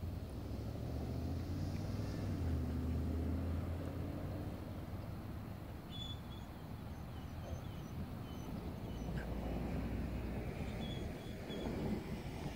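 Low rumble of a vehicle engine with wind on the microphone, strongest in the first few seconds, and faint bird chirps a little over halfway through and again near the end.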